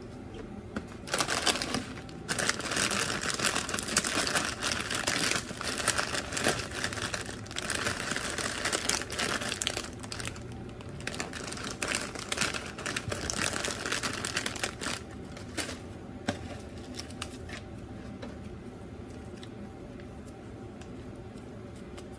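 Foil snack bag of nacho chips crinkling and crackling as it is handled. The crinkling is loud and dense from about a second in until about fifteen seconds, then thins to a few faint rustles and clicks.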